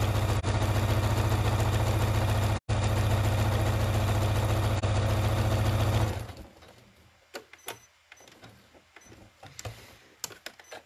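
Electric sewing machine stitching steadily at speed through batik fabric fused to wadding, sealing the edges of the pieces. It stops abruptly about six seconds in, leaving a few light clicks and handling sounds as the piece is turned.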